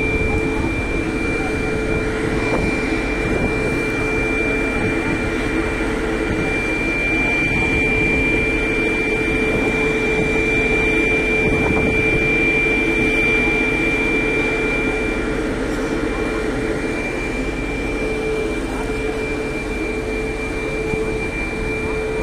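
Indian Railways electric locomotive running its cooling blowers and electrics: a steady hum with a high whine held on one pitch throughout.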